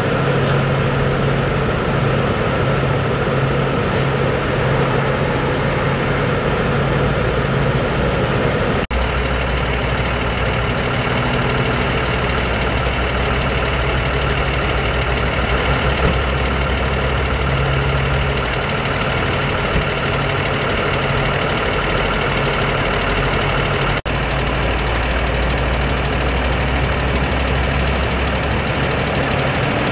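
Heavy diesel engines of the emergency vehicles idling steadily, a continuous low hum with broad engine noise over it.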